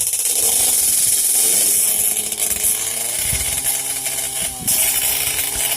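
Drag racing motorcycle engine revving hard. Its pitch climbs over the first couple of seconds, then holds high and steady, with a loud exhaust rasp.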